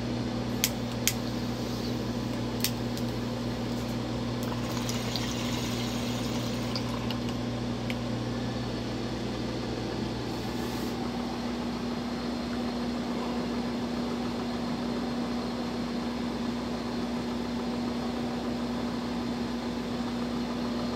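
Steady whir and low electrical hum of indoor grow-tent equipment such as ventilation fans; the deeper part of the hum drops out about halfway. A few sharp clicks in the first three seconds and a brief crackly rustle a few seconds in.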